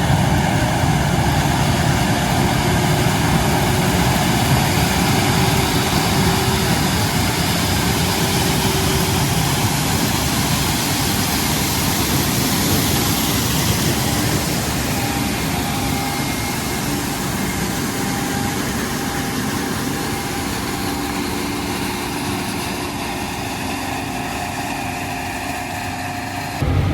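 New Holland CR11 combine harvesting corn: its 775-horsepower engine and threshing machinery running steadily, slowly growing fainter.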